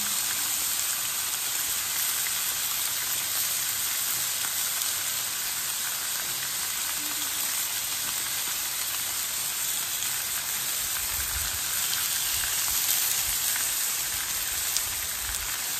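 Sausage links, ground breakfast sausage and bacon sizzling steadily on a Blackstone 28-inch flat-top griddle.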